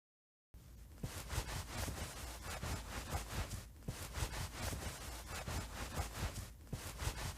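Gross eating sound effect of food being gulped down whole: a dense run of crackling, rubbing noises that starts about half a second in.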